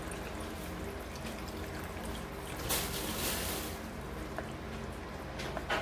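Water poured from a mug into a pan of chicken in tomato sauce, trickling and splashing, loudest for about a second around three seconds in. A steady low hum runs underneath, and a few light clicks come near the end.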